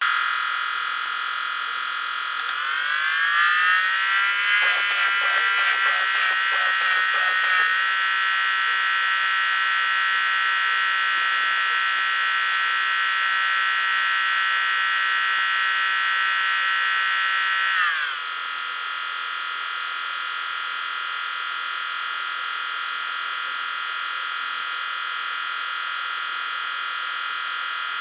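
High-pitched electronic whine from a noisy computer component, several steady tones together, starting abruptly. About two and a half seconds in it rises and wavers, with a fluttering from about four to eight seconds in. About eighteen seconds in it drops slightly in pitch and gets quieter, then holds steady.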